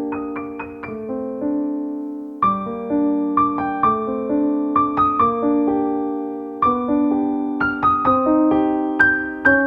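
Solo piano music: a gentle melody of struck notes that ring and fade, with a short pause about two seconds in.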